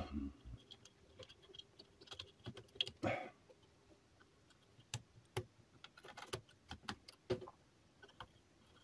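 Faint, irregular light clicks and taps of small metal parts and tools being handled while a part is worked loose from an old radio's chassis.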